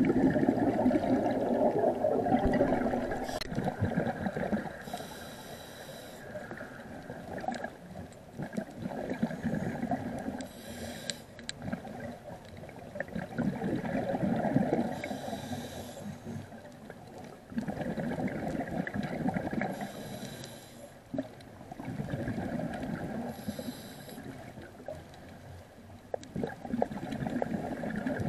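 Scuba diver breathing through a regulator underwater: a short hiss on each inhale, then a longer burst of bubbling exhaust on each exhale, repeating about every four to five seconds.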